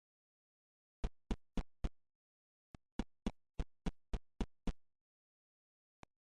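A run of sharp clicks or taps, about four a second, in two groups (four, then eight) with dead silence between them and a single click near the end.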